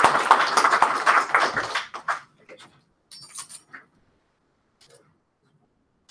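Small audience applauding, dying out about two seconds in, followed by a few scattered faint clicks and knocks.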